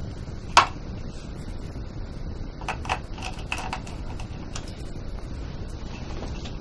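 Sharp click about half a second in, then a short run of light clicks and taps a couple of seconds later, from small parts being handled while wiring up an LED lamp, over a steady low hum.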